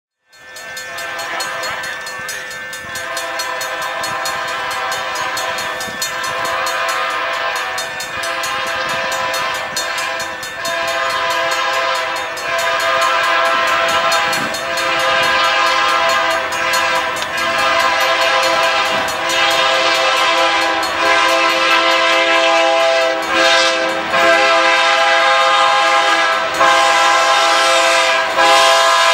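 Diesel freight locomotive's air horn sounding long blasts as it approaches a level crossing, growing louder as the train draws nearer.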